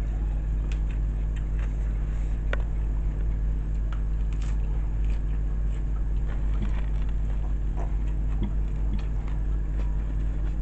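Mukbang eating sounds: faint chewing and scattered small clicks as fried chicken, rice and lettuce are eaten by hand, over a steady low hum that is the loudest thing heard.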